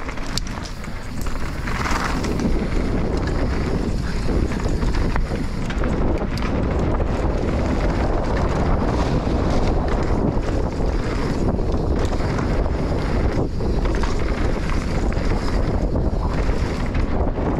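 Wind buffeting the microphone of a moving rider: a steady low rumble, with a few brief knocks.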